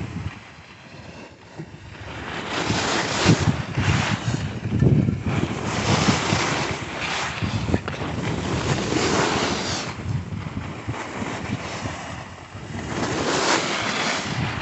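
Wind buffeting the microphone of a skier moving downhill, mixed with the hiss of skis scraping over groomed snow. The noise rises and falls in surges a few seconds apart.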